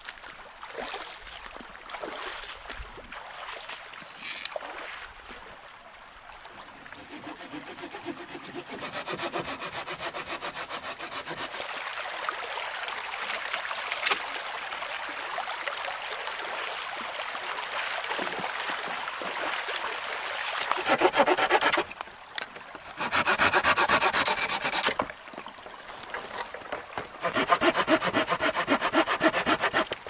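Folding pruning saw cutting through a dry, dead branch in quick back-and-forth strokes, in three loud spells that begin about two-thirds of the way through. Before that, steadier scraping and splashing as dead branches are dragged through the shallow stream.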